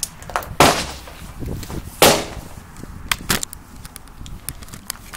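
Two loud, sharp cracks about a second and a half apart, each with a short ringing tail, then a few lighter clicks and knocks.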